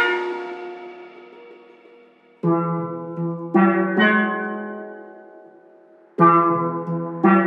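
Music: ringing chords struck on a pitched instrument, each left to die away. A louder passage fades out over the first two seconds, then chords are struck about two and a half seconds in, again around three and a half and four seconds, and again about six seconds in and near the end.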